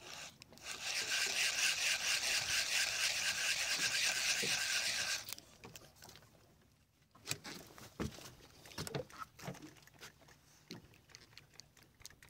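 A fishing reel buzzing steadily for about four and a half seconds, then stopping, followed by a few scattered knocks and taps of gear in the boat.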